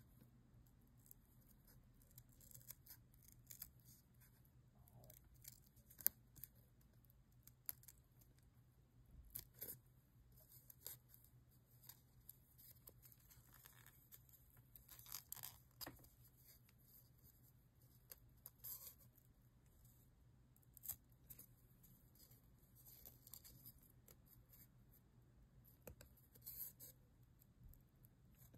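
Small scissors snipping through a thin piece of leather, trimming a cutout: many short, faint snips at irregular intervals.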